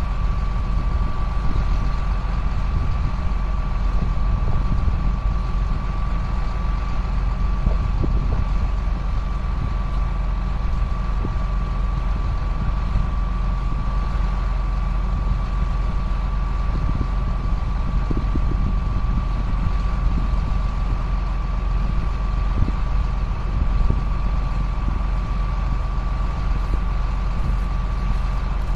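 Engine of a 2005 John Deere self-propelled sprayer running steadily, a low drone with a steady high whine above it.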